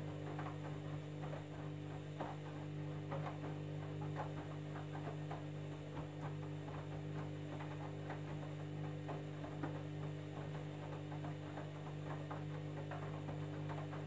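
Candy front-loading washing machine running its wash tumble: a steady motor hum with soft, irregular knocks from the jeans turning in the drum.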